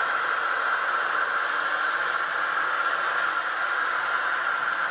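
HO scale model train rolling along the track: a steady whirring hiss.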